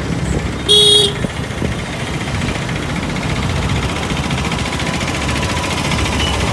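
Riding a motorbike through town traffic: steady engine and road rumble, with one short vehicle horn honk about a second in.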